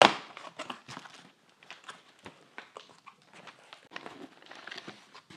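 Cardboard shipping box being opened by hand: flaps pulled back and cardboard rustling and scraping in irregular bursts and taps, loudest at the very start.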